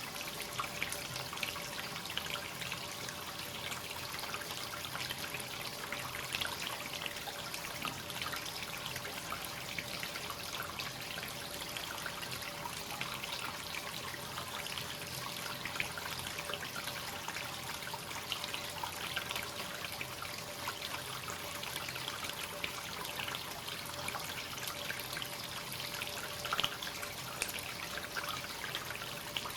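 Hot-spring water trickling and splashing steadily as it flows continuously into a bath tub, with many small splashes.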